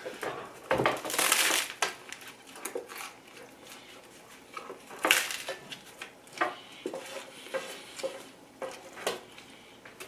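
Close-up eating sounds from a sandwich meal: chewing and handling food, with irregular clicks, knocks and clatter. There is a longer rustling stretch about a second in and a sharp click about five seconds in.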